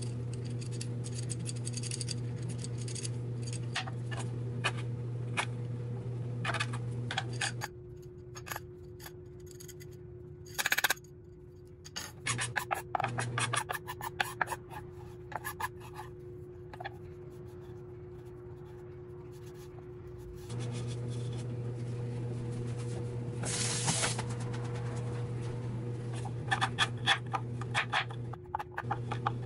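Kitchen utensils scratching and scraping during food prep, with scattered light clicks and a louder knock about eleven seconds in. Under it runs a steady low hum that cuts out about eight seconds in and comes back about twenty seconds in.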